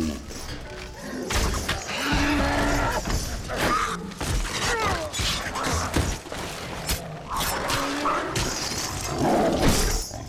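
Film battle soundtrack for a fight with a cave troll: orchestral score under repeated crashes, smashes and shattering debris. Rising and falling cries come through about halfway in.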